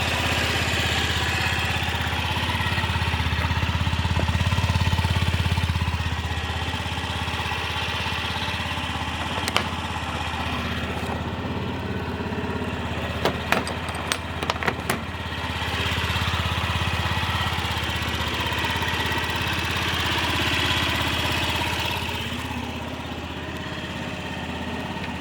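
Honda Gyro Canopy's four-stroke single-cylinder scooter engine running steadily, the level swelling twice. A few sharp clicks come in the middle.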